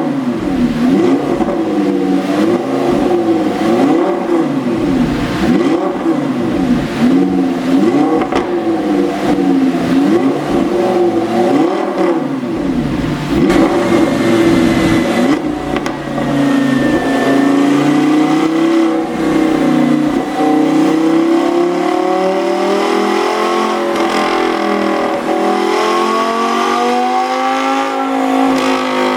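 Audi R8 5.2 FSI V10 engine revving in quick repeated blips, about one a second, with sharp exhaust pops as the revs drop, from a pop-and-crackle tune. In the second half the engine speed rises and falls more slowly, in longer sweeps.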